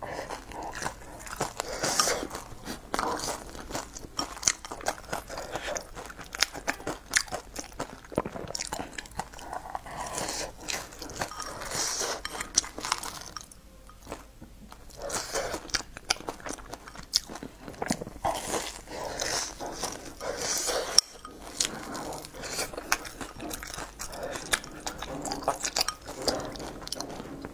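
Close-miked chewing and eating sounds of a person eating from a bowl with chopsticks: irregular small clicks and mouth noises, with a brief lull about halfway through.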